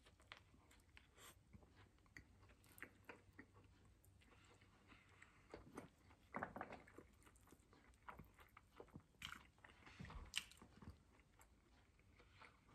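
Faint mouth sounds of a person chewing a mouthful of Whopper burger: soft scattered clicks and crunches, a little louder near the middle and again about ten seconds in.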